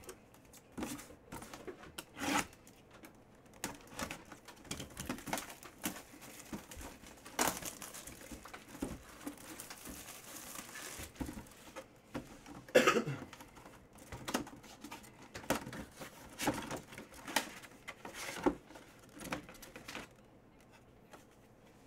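Plastic wrapping crinkling and tearing as a boxed item is unwrapped, with scattered rustles and taps of cardboard packaging. The loudest crackle comes about thirteen seconds in.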